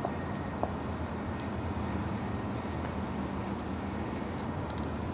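Steady low background rumble of outdoor ambience, with a few faint ticks.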